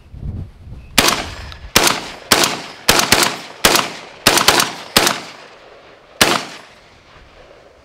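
Black Aces Tactical Pro Series bullpup 12-gauge semi-automatic shotgun fired unsuppressed with 2¾-inch shells: ten shots in about five seconds, in an uneven rhythm with some quick pairs, the last after a pause of over a second. The gun cycles each shell.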